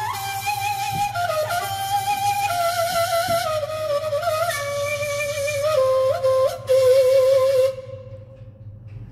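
Yamaha PSR-A5000 arranger keyboard playing its kaval (end-blown shepherd's flute) voice: a slow single-line melody with wavering ornaments on the notes, stepping gradually lower in pitch, ending about eight seconds in on a long held note that fades away.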